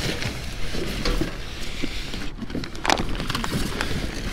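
Objects being handled and moved about: scattered knocks, clatters and rustling, with a louder knock about three seconds in.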